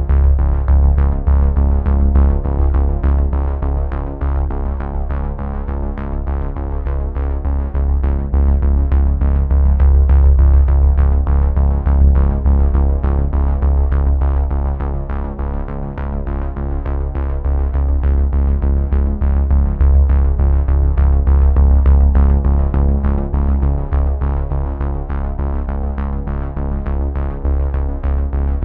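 Background music with sustained chords, a heavy bass and a steady beat.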